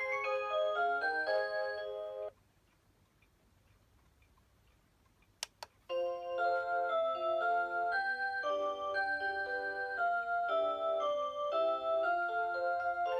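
Rhythm Watch Aria Cantabile melody alarm clock playing an electronic 'Aurora Sound' chime melody. The tune cuts off about two seconds in, two sharp clicks follow a few seconds later, and a melody starts again about six seconds in.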